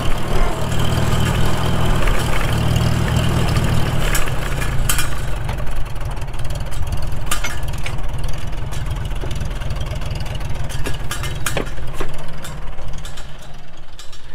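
Restored 1942 Farmall H tractor's four-cylinder engine running, louder for the first few seconds and then settling to a lower, steadier note, with a few sharp clicks.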